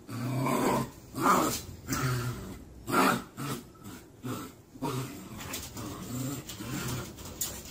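Husky puppy growling and yapping at its own reflection in a mirror: a string of short, pitched growls and yaps.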